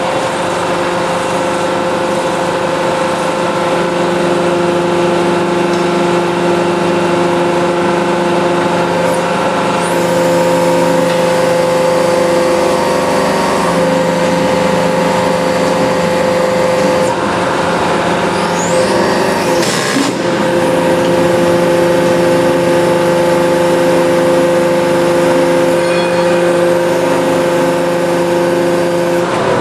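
Hydraulic press's pump motor running steadily, a constant multi-tone hum and whine while the ram presses down on plywood. One sharp crack about twenty seconds in, and the hum falls in pitch as it shuts off at the end.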